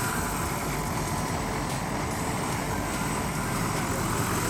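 Radio-controlled model helicopter in flight: a steady rotor and motor noise with a thin, high, even whine.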